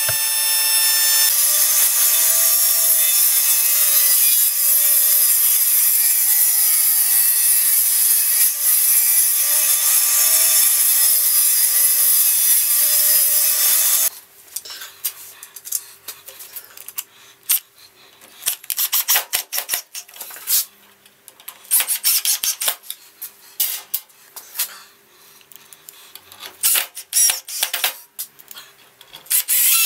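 Table-mounted router cutting a dado in a timber strip: a steady high whine whose pitch wavers slightly as the bit takes the wood. It stops abruptly about halfway through, and scattered light knocks and clicks of wooden parts being handled follow.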